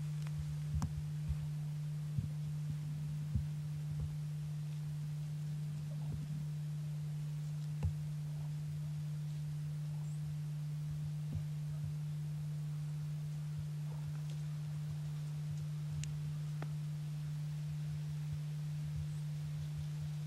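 A steady low hum held at one pitch throughout, with a scattering of faint clicks and ticks.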